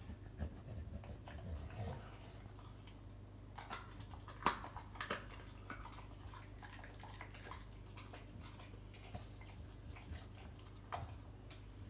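An American Bully chewing a raw chicken carcass, with scattered crunches of bone. The loudest crack comes about four and a half seconds in, and another cluster follows near the end.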